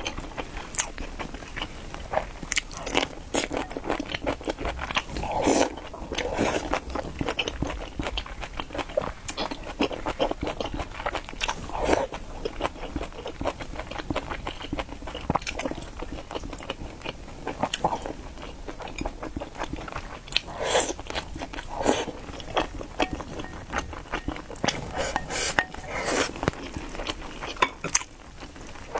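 Close-miked eating sounds: chewing and wet mouth sounds of someone eating rice with chopsticks, with frequent short clicks of chopsticks against a porcelain bowl.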